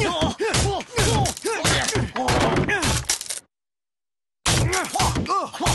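A wooden crate being kicked and stamped to pieces: repeated thuds and cracking wood, mixed with a man's effortful grunting. The sound cuts out completely for about a second around the middle, then the smashing and grunting go on.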